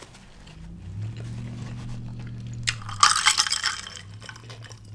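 A drinking glass clinks and rattles for under a second, about three seconds in, as it is picked up to drink. Around it is a low, steady closed-mouth hum while chewing.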